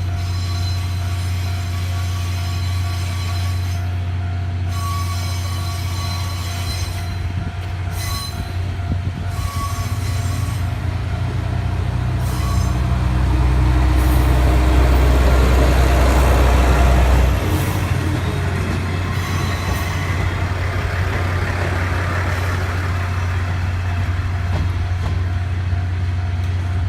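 Steam locomotive C57 180 and its passenger train running past close by, a heavy rumble that builds to its loudest a little past halfway and then eases off. Thin high steady tones sound over it in the first third, and a low hum runs underneath throughout.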